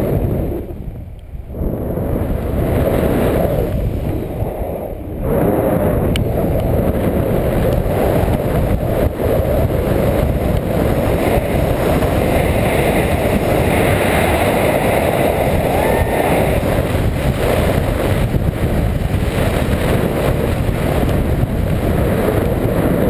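Wind rushing over an action camera's microphone during a tandem paraglider flight: a loud, steady rumbling noise, dipping briefly about a second in and again around five seconds.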